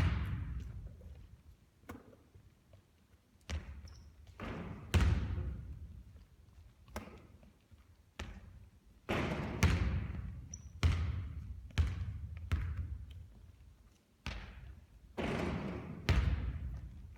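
A basketball thudding again and again at an irregular pace during three-point shooting practice. Each hit rings on in a long echo.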